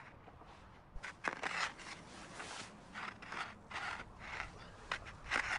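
Snow crunching and scraping in a run of short strokes, about two a second.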